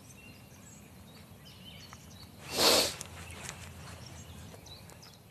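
Outdoor forest ambience with a few faint bird chirps, and one short, loud hissing burst about halfway through, lasting about half a second.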